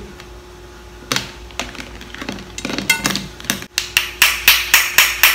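Cooked crab claw shells being knocked to crack them open: a few scattered clicks and taps, then, about four seconds in, a quick run of sharp knocks at roughly five a second.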